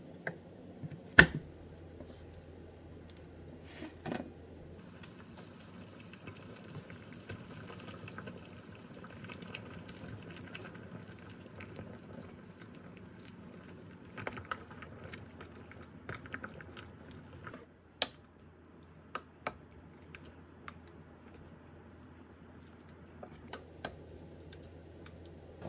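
Quiet kitchen sounds. A knife chops a block of Japanese curry roux on a wooden cutting board, with a sharp knock about a second in. Then a pot of chicken curry simmers with a steady faint hiss while a wooden spoon stirs it, and near the end come a few clicks as dishes are set on the counter.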